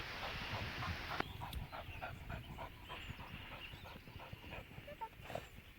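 A dog panting rhythmically, about four breaths a second. A hiss at the start cuts off suddenly about a second in.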